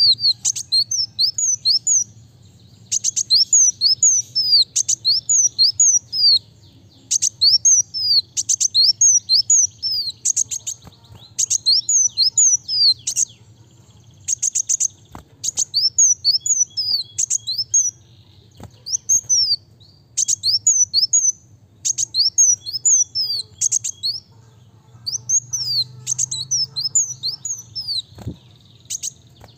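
Kolibri wulung sunbird singing in fast, tight phrases: rapid thin, high chirps, each sweeping quickly in pitch, in runs of a second or two with short pauses between, the bird in full, energetic song.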